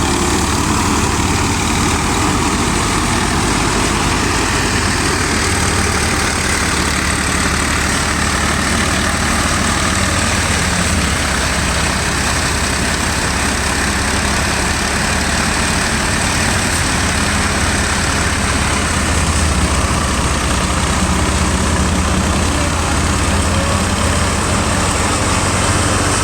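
Diesel engine of farm harvesting machinery running steadily under load: a low, even engine drone with a loud rushing clatter over it.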